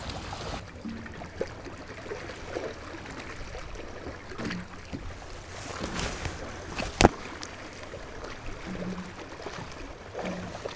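Small waves lapping against a boat's hull as it sits on the lake, with a single sharp knock about seven seconds in.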